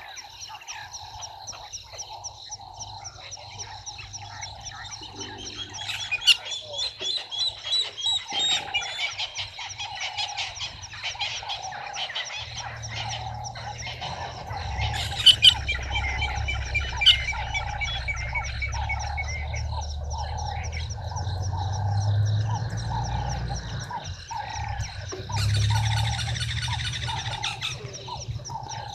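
Frogs and birds calling together. One frog repeats a short note about once a second over a high steady trilling, and bird chirps break in three times. A low rumble sets in about halfway through.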